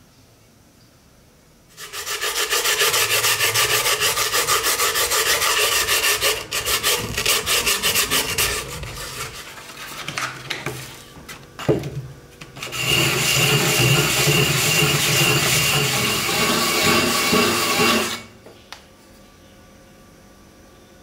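The rim of a fired ceramic horn cup being rubbed back and forth on a sheet of sandpaper, a rapid gritty scraping. It comes in two long spells, with lighter scrapes and one sharp knock in the pause between them.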